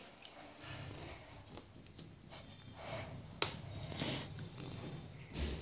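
Faint rustling and small taps of hands handling sticky tape and paper, with one sharper click about three and a half seconds in.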